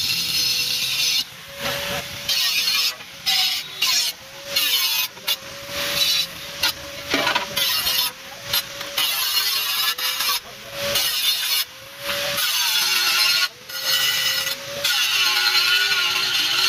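Handheld electric angle grinder grinding a steel plate: a steady high grinding hiss over the motor's whine, which sags and recovers as the disc bites and eases. The sound breaks off abruptly and comes back many times in quick succession.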